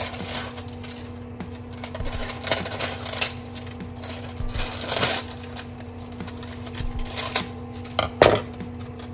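Scissors snipping through parchment paper, a series of short, irregular snips with paper crinkling and rustling between them; the loudest snips and rustles come near the end. A steady low hum runs underneath.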